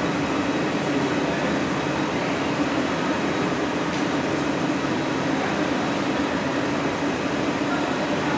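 The steady roar of a glassblowing hot shop: gas-fired glory holes and furnace burners running with ventilation fans, an even rushing noise with a steady low hum under it.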